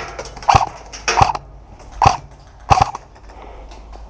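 Airsoft gun firing single shots: four short sharp pops spaced roughly two-thirds of a second apart, the last a quick double.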